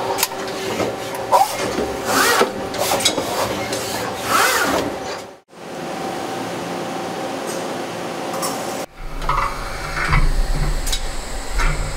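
Doosan PUMA TW2100M-GL twin-spindle turning center and its gantry loader at work: mechanical clicks and clanks, short rising whirs and a steady hum. The sound drops out briefly about five seconds in, and changes near nine seconds as a low hum comes in.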